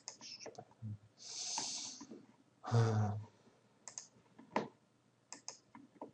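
Scattered computer mouse clicks, with a breath noise about a second in and a short, louder vocal sound from the user near three seconds in.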